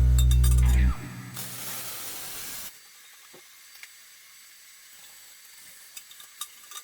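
Music ends about a second in. Then comes a short, steady hiss lasting just over a second, an aluminium MIG spool-gun weld, after which only low room sound with a few light clicks remains.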